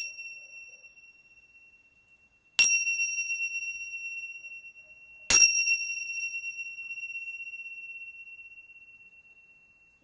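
Small bell struck three times, about two and a half seconds apart, each strike ringing a clear high tone that fades slowly. It closes the guided meditation.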